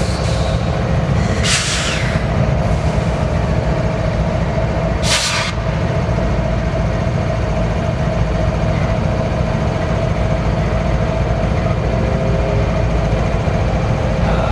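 BNSF freight train rolling past close by: a steady heavy rumble of wheels on rail with a steady ringing tone over it, and two short high hisses about 1.5 and 5 seconds in.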